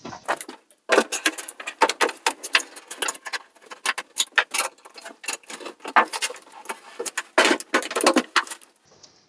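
Loose metal screws and small hardware rattling and clicking in quick, irregular clatters, stopping shortly before the end.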